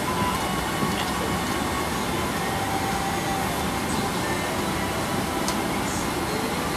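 Steady cabin noise inside a Boeing 767-300ER taxiing, its engines running at low power, with a faint steady whine over the even rush.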